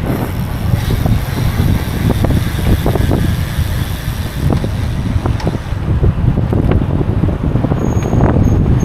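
Wind buffeting the microphone of a camera carried on a moving bicycle: a loud, steady low rumble, with scattered small knocks and rattles from the bike on the road.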